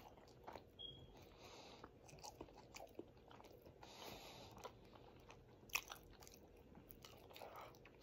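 Quiet, close-up mouth sounds of a person chewing a Whopper burger with onion rings: wet lip smacks and soft clicks at an uneven pace, one louder smack just before six seconds in.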